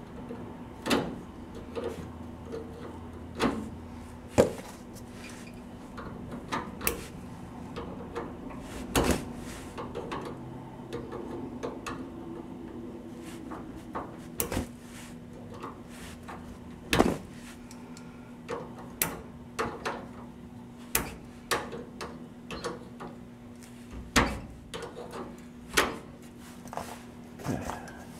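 Hand tools working the parking brake cable clevis, pin and lock nuts on a 1949 Chevy 3100 truck: irregular metallic clicks and clanks, about one a second, over a steady low hum.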